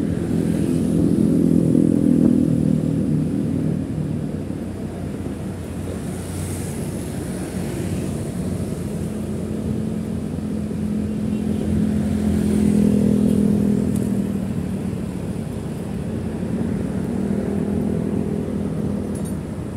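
Motorcycle engine running while riding along, picking up speed about two seconds in and again about twelve seconds in.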